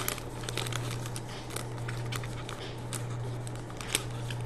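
Foil wrapper of a Panini Select trading-card pack crinkling and tearing as it is pulled open by hand, with scattered irregular crackles, the sharpest right at the start and near the end. A steady low hum runs underneath.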